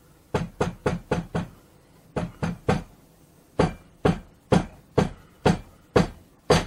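Knuckles rapping on a hard, hollow-sounding surface, loud and sharp. First a quick run of four knocks, then three more, then six slower, evenly spaced knocks about half a second apart.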